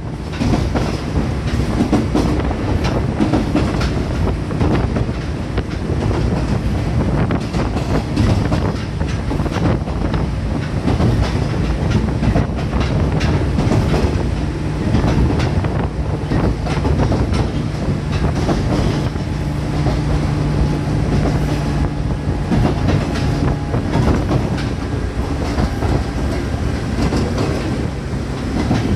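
JR West 105 series electric train running at speed, heard from inside the car: a steady rumble of wheels on rail with the clickety-clack of rail joints. A low hum holds through the middle and fades near the end.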